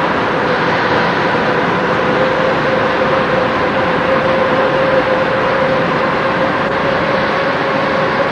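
Steady engine drone with a constant hum, unchanging throughout.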